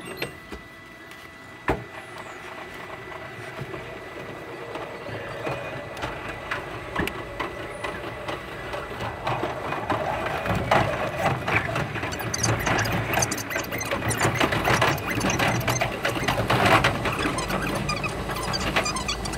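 Limited express electric train running, heard from inside the carriage and sped up about five and a half times, so the wheel clicks blur into a fast, dense chatter with a squeal. It grows steadily louder over the first dozen seconds and then stays loud.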